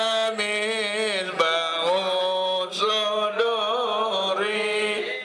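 Islamic devotional chanting: a voice sings a long, ornamented melody over a steady held note. It begins to fade out at the very end.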